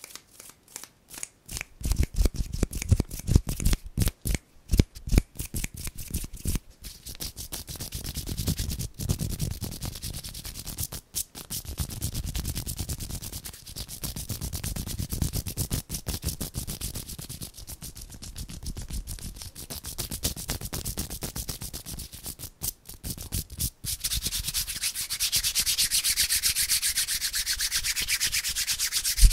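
Bare hands rubbing together right at a handheld recorder's microphone: a fast run of separate strokes, then continuous rubbing that turns to a brighter, steadier hiss near the end.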